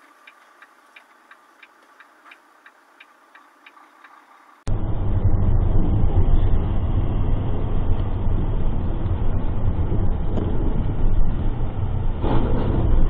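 A vehicle's indicator flasher ticking faintly and evenly, about three clicks a second, in a dashcam recording from inside a vehicle stopped beside a highway pileup. About four and a half seconds in, this cuts abruptly to a loud, steady low rumble of engine and road noise recorded inside a moving car.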